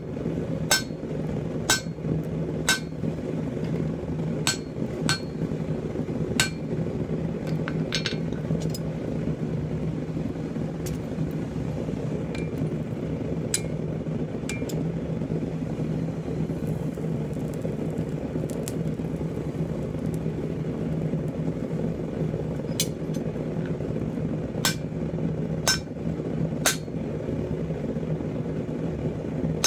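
Hammer blows on a handled drift set in the glowing steel of a pipe tomahawk head on an anvil. Each strike is a sharp metallic clink with a short ring. The blows come about one a second in spells, with a pause of several seconds in the middle, over a steady low hum.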